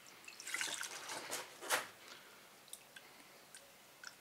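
Distilled water poured from a plastic jug to rinse a filter housing, splashing in a few short spurts, the loudest just before two seconds in, then a few faint drips.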